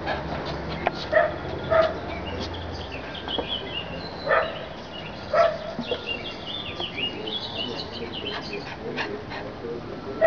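Small dog, a Bichon Frisé, giving four short barks: two about a second in, two more around four and five seconds in.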